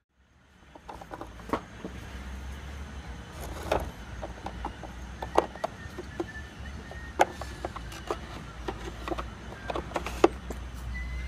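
Irregular wooden and metal clicks and knocks as a hand handles a wooden tool-box insert and its small front drawer, over a low steady rumble. The sharpest knock comes near the end.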